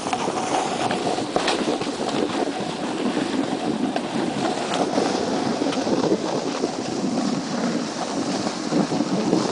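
Wind buffeting the microphone: a steady, loud, rumbling rush with a few faint sharp clicks scattered through it.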